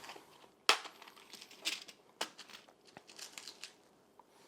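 Crinkling and crackling of a picture-frame mounting kit's packaging being opened to take out the small screw eyes: a sharp crackle about two-thirds of a second in, then a few softer, scattered ones.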